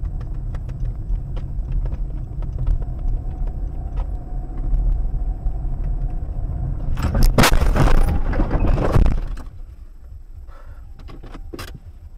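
Road and engine rumble of a car driving, heard from inside the car, then about seven seconds in a loud collision lasting about two seconds, with crashing and scraping.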